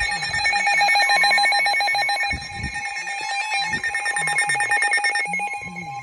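Several Midland NOAA weather radios sounding their warning alert at once: rapid pulsed alarm beeps, joined about a second in by a steady unbroken tone, the weather-radio warning alert tone that comes before the spoken warning. A few low handling bumps are mixed in.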